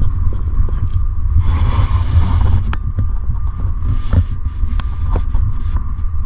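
Wind buffeting the microphone: a loud, uneven low rumble, with a faint steady hum and scattered small clicks underneath.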